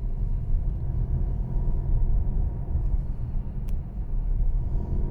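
A Mercedes-Benz E-Class All-Terrain rattling over a steady low rumble, with one faint click late on.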